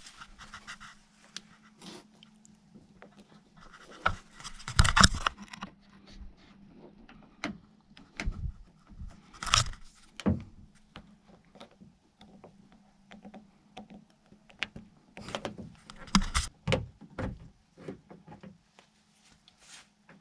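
Hand work on a car door's plastic trim and handle parts: scattered clicks, knocks and scrapes as a part is worked loose, with a faint steady hum behind.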